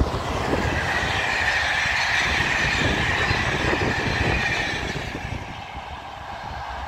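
Electric locomotive hauling Corail passenger coaches passing at speed: a rolling rumble of wheels on rail with a steady high hiss. It fades about five seconds in as the last coach goes by.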